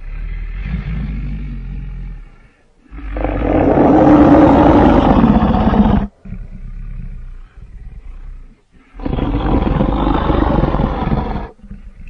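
Custom-designed Tyrannosaurus rex sound effect. A low growl is followed by a long, loud roar starting about three seconds in. Lower growls come next, then a second roar starting about nine seconds in.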